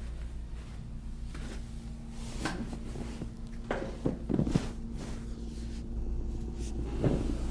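Several short, soft knocks and rustles from a patient shifting and being positioned on a chiropractic treatment table, the loudest pair about four seconds in, over a steady low hum.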